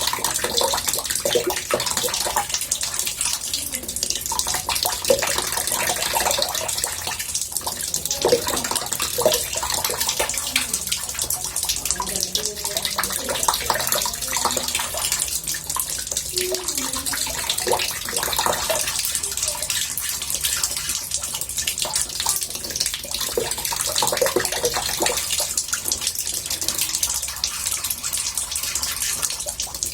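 Water running into a bathtub: a steady splashing hiss with small bubbling variations.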